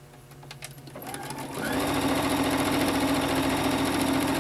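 Electric domestic sewing machine starting about a second in, speeding up, then stitching a fabric seam steadily at full speed.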